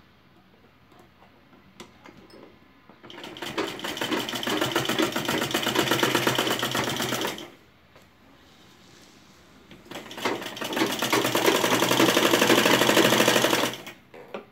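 Domestic sewing machine stitching in two runs of about four seconds each: a rapid, even clatter of the needle mechanism that builds up at the start of each run and stops abruptly, with a short quiet pause between. A few faint handling clicks come before the first run.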